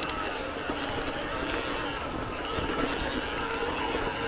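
Riding noise from a Giant Trance E+ Pro 2 electric mountain bike on a dirt trail: a steady rush of wind on the mic and a low rumble of tyres over the ground, with a few small knocks from the bike over bumps.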